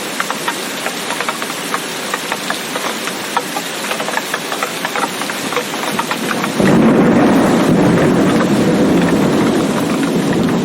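Heavy rain pattering with many close drop ticks; about two-thirds of the way in a loud low roll of thunder sets in suddenly and rumbles on over the rain.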